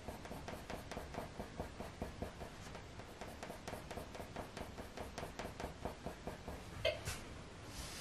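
Faber-Castell Polychromos coloured pencil scratching across hot-press watercolour paper in short quick strokes, about three to four a second, as fur is hatched in. Near the end comes one sharper, louder click.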